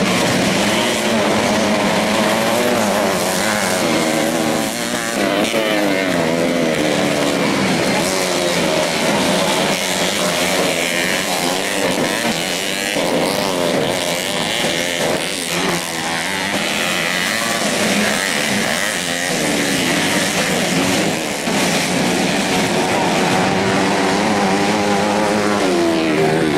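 Modified four-stroke 125 cc underbone motorcycles racing on a dirt track, the engines revving up and dropping back again and again as the riders work the throttle and gears.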